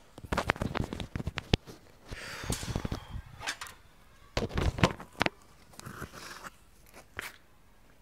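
Handling noise from work on a gas stove's ignition wiring: irregular clusters of clicks and knocks, with a stretch of rustling about two seconds in.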